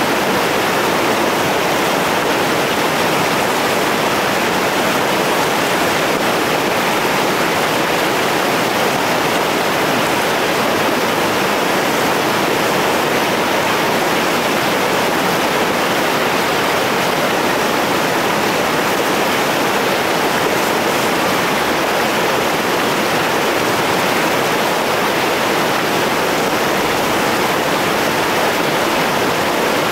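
Steady, loud rush of whitewater pouring down a steep rock slide rapid on the Tallulah River.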